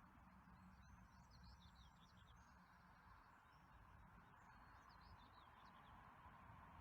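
Faint birdsong: quick, high chirps in two short bursts, over a steady low background rumble.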